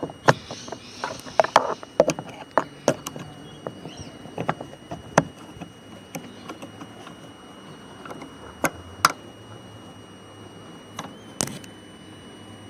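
Car door handle and door-trim parts being handled and fitted, making sharp clicks and knocks, many in the first few seconds and only a few after, over a faint steady high whine.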